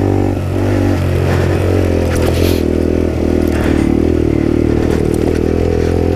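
Engine of a 50cc Motrac M5R mini supermoto motorcycle running under throttle while riding. Its note dips about a second in, then climbs and holds. Short bursts of dirt and gravel noise from the knobby tyres come in a couple of times.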